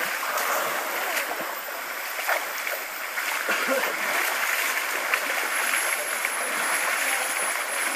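River water splashed repeatedly by hand over a bathing elephant, small irregular splashes over the steady rush of the river.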